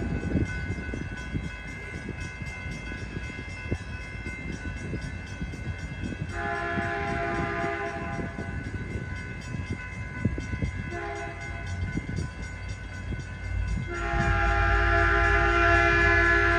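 Caltrain locomotive horn sounding the grade-crossing signal: a long blast about six seconds in, a short one about eleven seconds in, and a long one from about fourteen seconds in, with a low train rumble growing louder underneath. An electronic crossing bell rings rapidly throughout.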